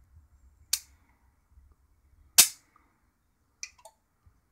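High-voltage arcs from a Mitsubishi CRT monitor's flyback transformer, fed by its built-in capacitor, jumping a gap of about an inch to the steel case. Two sharp, loud cracks about a second and a half apart, the second the loudest, then two fainter snaps near the end over a faint low hum.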